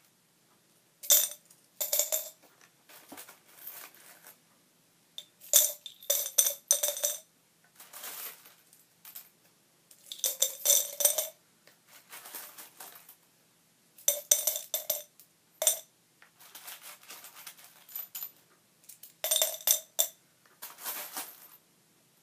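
Pennies dropped into a glass jar, clinking and ringing against the glass and the coins already inside, in irregular bursts of a few coins at a time with brief jingling rattles between them.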